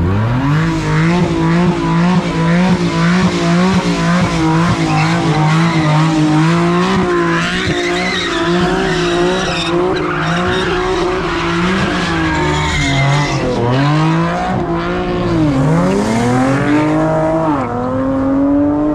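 A car engine held at high revs during a burnout, tyres spinning and squealing. The revs hold high and waver for about twelve seconds, then drop and climb again several times near the end.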